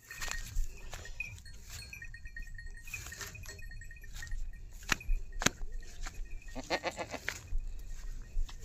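A goat bleats once, a wavering call lasting just under a second about two-thirds of the way in. Two sharp clicks come shortly before it, over a low rumble.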